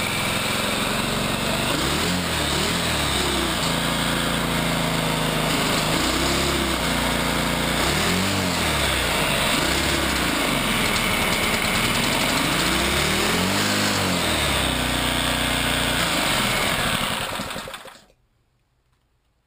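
GX200-clone single-cylinder engine with a 3D-printed Roots supercharger revving up and falling back several times in short throttle pulls, with fuel poured into the intake by hand. It makes some boost pressure at no load. The sound drops away to silence about a second and a half before the end.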